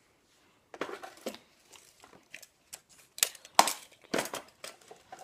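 Tools clattering and knocking against each other as someone rummages through a toolbox: a run of irregular clicks and knocks, loudest about three and a half seconds in.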